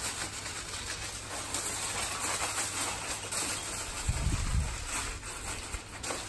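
Aluminium foil crinkling and rustling as it is pressed and crimped down over a baking tray, with a pigeon or dove cooing.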